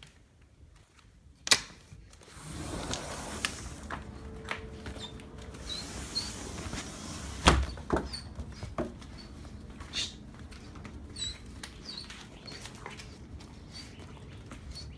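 A door clicks about one and a half seconds in and opens, letting in outdoor noise. A German Shepherd puppy then moves about on patio paving, with scattered knocks and one loud thump about halfway through, and a few faint high chirps.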